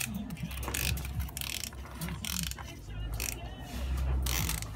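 Ratchet wrench on a 17 mm socket and cup-type oil filter wrench, clicking in about five short back-strokes, roughly one a second, as it is worked to loosen a motorcycle oil filter.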